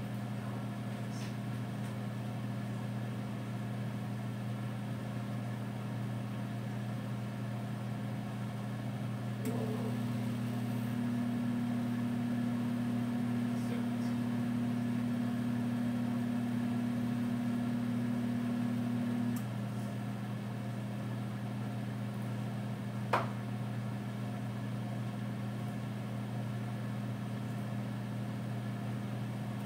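Over-the-range microwave oven running with a steady low hum while cooking a frozen steak. A second, higher hum joins for about ten seconds in the middle, and a single sharp click comes near the end.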